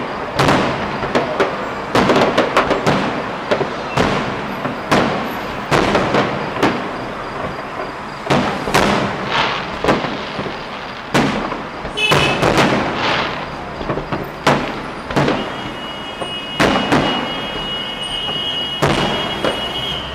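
Fireworks display: aerial shells bursting in a rapid, irregular series of loud bangs, some trailing off in echo and crackle. A steady high whistle runs through the last few seconds.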